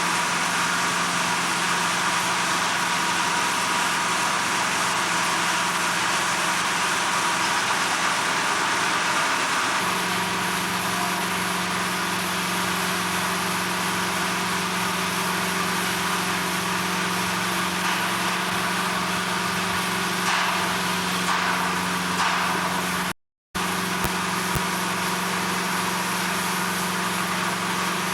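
Steady mechanical drone of running machinery or an idling engine, with a constant low hum. The drone shifts slightly partway through and cuts out completely for a moment near the end.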